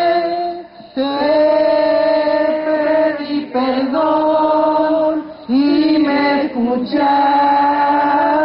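Unaccompanied Spanish worship hymn sung slowly, one woman's voice leading on long held notes with the congregation, with brief breaks between phrases.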